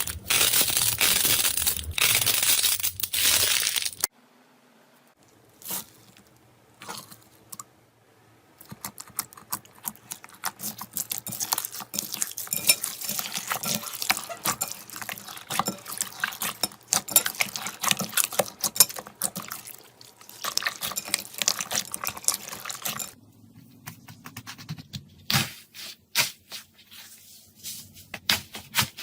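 Slime being handled. A dense, loud crunching runs for the first four seconds. After a few near-quiet seconds come long runs of quick small clicks and pops.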